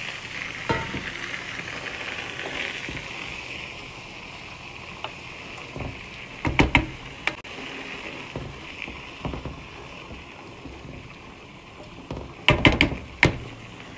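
Hot water sizzling on rice toasted in butter and oil in a pot, the hiss dying down over the first few seconds. A wooden spoon then stirs the rice and water, with a few sharp knocks against the pot around the middle and a cluster of them near the end.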